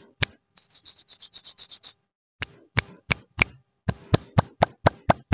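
A string of sharp finger clicks made by hands. About a second in comes a quick run of lighter, scratchy ticks, and near the end the clicks speed up to about four a second.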